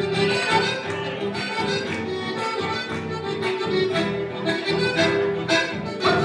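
Live chamamé on accordion and guitar: the accordion carries the melody over a steady beat of strummed guitar chords.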